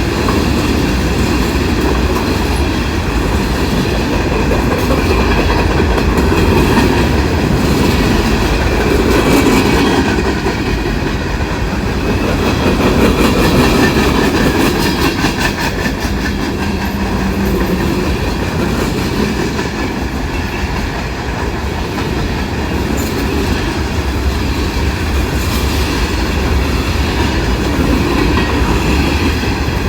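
Norfolk Southern freight train's cars rolling past, a steady rumble with wheels clicking over the rail joints.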